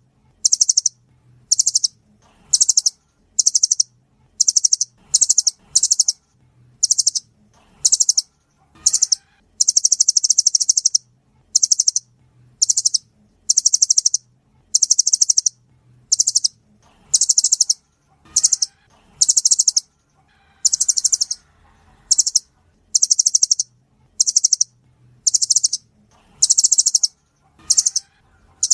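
Nuthatch calls: short, high, rapid trills repeated about once a second, a few of them drawn out longer, one bird calling in a steady series.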